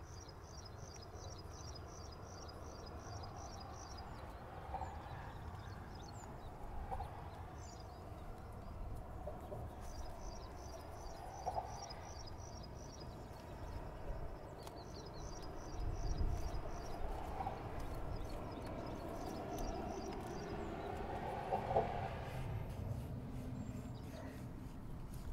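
Outdoor ambience: a fast, high chirping trill comes in short bouts of about two seconds, four times, over a low steady rumble, with a few scattered lower animal calls.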